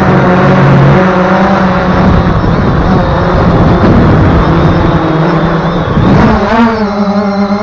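Brushless motors and propellers of a BayangToys X16 quadcopter running in flight, heard from the action camera mounted on it, with wind rushing over the microphone. The motor pitch wavers and rises briefly about six seconds in.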